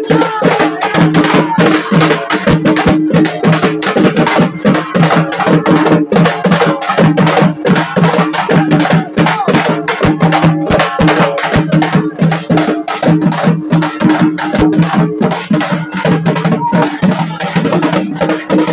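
Loud festival drumming: rapid, dense drumbeats played without a break, over a steady held low tone.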